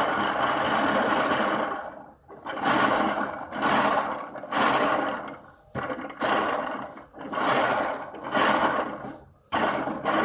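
Magnets on a coupled pendulum clattering against each other in a fast buzzing rattle. The rattle comes in bursts about once a second, each starting sharply and dying away.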